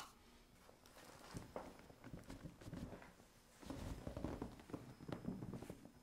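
A single short, sharp crack as gloved hands thrust down on the mid back in a chiropractic thoracic adjustment, followed by faint clicks and low rustling of movement on the padded treatment table.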